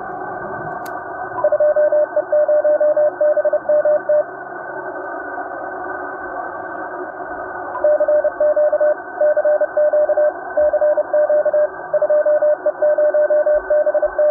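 Morse code heard through a ham radio receiver: a tone keyed on and off in dots and dashes over a steady receiver hiss. There are two runs of code with a pause of a few seconds between them, the second starting about halfway through.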